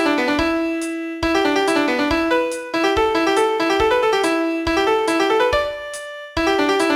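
Piano playing a fast melody of quick, often repeated notes in the middle register, in short phrases with a brief break between each, about every one and a half seconds.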